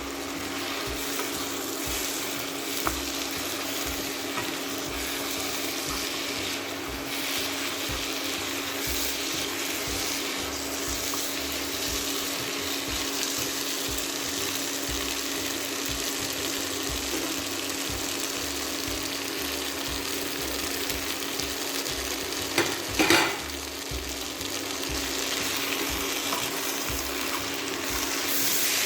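Sofrito of onion, garlic, peppers, tomato and ground spices sizzling steadily in hot oil in a pan, with a steady low hum underneath. A brief clatter of a utensil against the pan about 23 seconds in.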